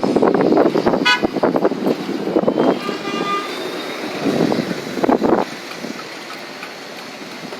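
Transit buses running at a bus terminal, with a short horn toot about a second in and another brief pitched tone around three seconds in; the engine rumble fades over the second half.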